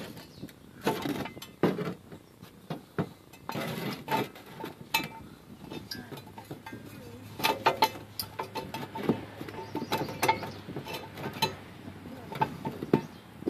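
Steel ratcheting jack stand being adjusted by hand, with a wooden block on its saddle: irregular metallic clicks and clinks from the toothed post, mixed with a few short scrapes and knocks.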